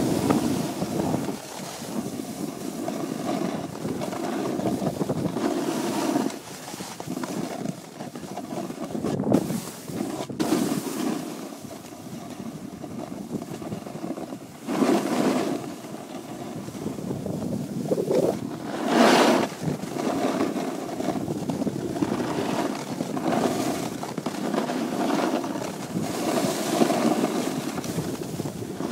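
Sliding down a ski run: a steady rushing hiss of the skis scraping over snow, mixed with wind buffeting the microphone. It swells briefly about halfway through and again a few seconds later.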